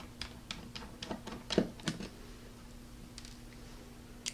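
A run of light, sharp clicks and ticks from a small screwdriver, tiny case screws and the SSD's metal casing being handled on a wooden surface, with two louder taps about a second and a half in.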